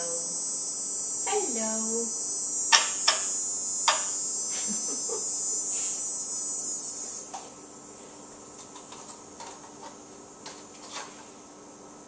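African grey parrot giving a short falling vocalization about a second and a half in, followed by a few sharp clicks, over a steady high-pitched hiss that stops about seven seconds in.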